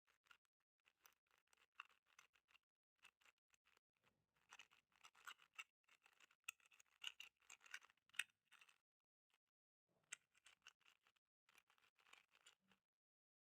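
Magnetic 4x4 speedcube being turned by hand: faint bursts of quick plastic clicks and clacks, with short pauses between runs of turns.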